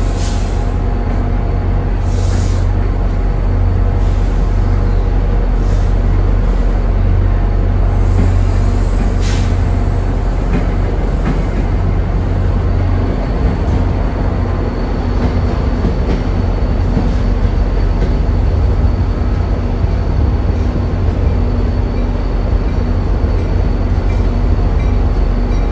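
NJ Transit passenger train cars rolling slowly past the platform with a steady low rumble, and a few brief high-pitched wheel squeals.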